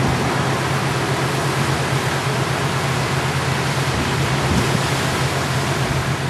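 Steady rushing wind noise on the microphone, with a low steady hum underneath.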